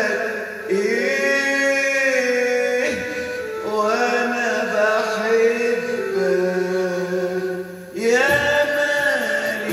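Electronic keyboard playing an Arabic melody in long held notes that slide into pitch, with short breaks about three seconds in and just before eight seconds.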